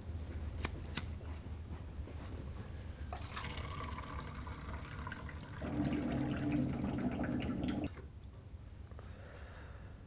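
Bottled water cooler's tap running water into a plastic container for about five seconds. It gets louder and fuller for the last two seconds, then cuts off sharply. Two sharp clicks come about a second in.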